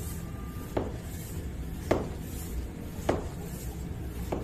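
PCP air-rifle hand pump being worked by hand, a short sharp stroke sound about once a second, four in all, with a hiss between. The freshly re-O-ringed pump is building pressure into a blanked-off hose, its gauge climbing past 100 bar.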